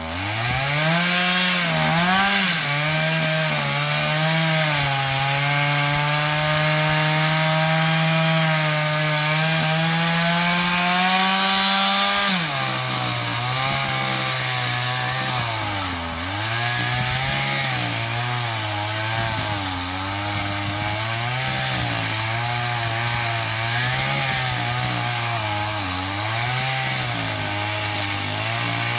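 Stihl MS 250 two-stroke chainsaw cutting wood. The engine revs up at the start and holds high for about twelve seconds, then drops to a lower speed that rises and falls repeatedly.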